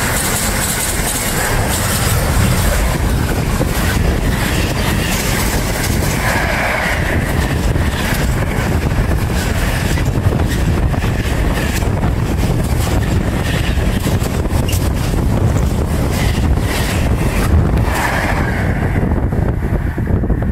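Container wagons of a fast freight train passing close by: a loud, steady rush and rattle of wheels on the rails, with wind buffeting the microphone. The rattle drops away near the end as the last wagon passes, leaving the wind.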